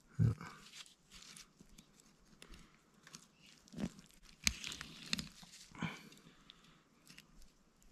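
Knife cutting through a whitefish fillet along the backbone and rib bones: a few short scrapes and clicks spread through, with a soft low thump just after the start.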